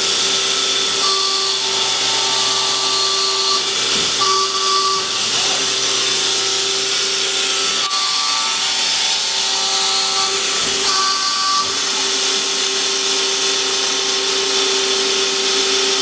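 Hydraulic press brake running under power: a steady pump whine over a constant hiss, with a higher tone that cuts in and out several times.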